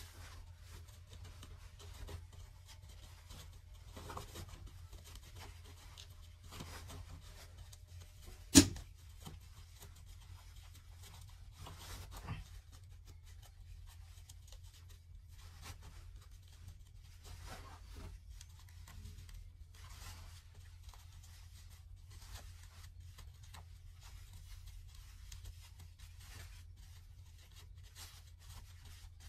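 Cloth rustling and rubbing in short, scattered bursts as a garment is handled and turned right side out, over a steady low hum. One sharp click stands out about a third of the way in.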